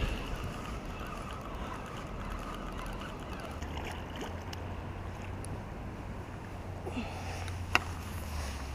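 A hooked carp splashing and sloshing in shallow river water as it is drawn into a landing net, over a steady low wind rumble on the microphone. A single sharp click near the end.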